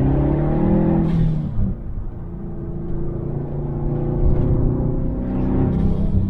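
Turbocharged 2.5-litre EJ257 flat-four boxer engine of a tuned Subaru WRX STi with its muffler deleted, accelerating with its pitch rising. About a second and a half in the revs drop briefly, as on a lift or gear change, then the engine pulls and climbs again.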